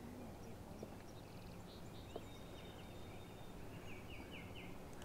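Faint bird calls over low background noise, with a quick series of four chirps about four seconds in.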